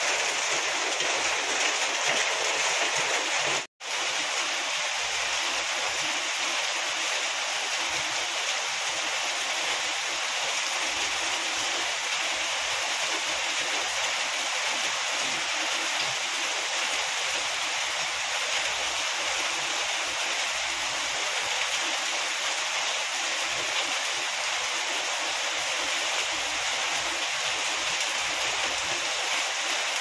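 Steady rain falling on dense leaves and bamboo, an even hiss. The sound cuts out for an instant a little under four seconds in.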